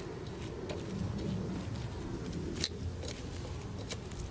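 Wood fire crackling under husk-on ears of corn roasting on the embers, with a few sharp pops over a steady low rumble.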